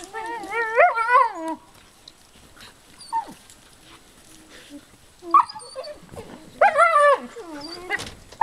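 Alaskan malamute puppies crying out while play-fighting: two wavering, pitched yowls about a second long, one at the start and one near the end, with short yelps between.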